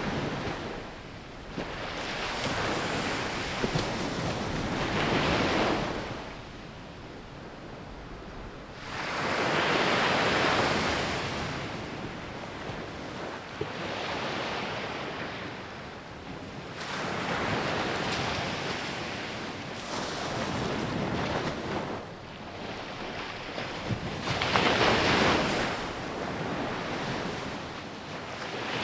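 Ocean waves breaking on a sandy beach, each surge of surf swelling and falling away every few seconds, with some wind noise on the microphone.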